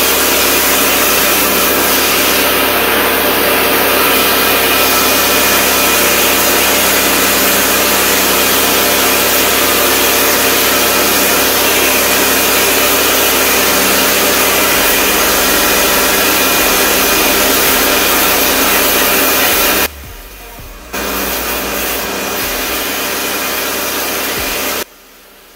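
A high-pressure washer running, its motor making a steady whine under the hiss of the water jet striking a tiled floor. It stops for about a second a few seconds before the end, runs again, then cuts off just before the end.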